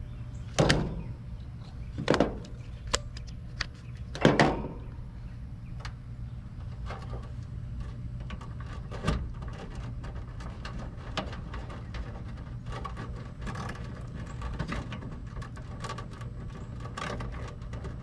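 Hands working the wires and spade terminals of a condensing unit's run capacitor against its sheet-metal control panel. Three sharp knocks in the first few seconds, then light clicks and rustling of wires.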